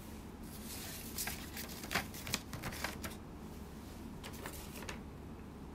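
Quick rustling and small clicks of something being handled close to the microphone, in a busy spell over the first three seconds and a shorter one about four seconds in, over a faint steady room hum.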